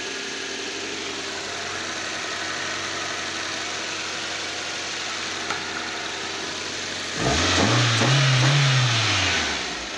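Car engine idling steadily, then revved once about seven seconds in: the pitch rises, holds for about two seconds and falls back to idle near the end.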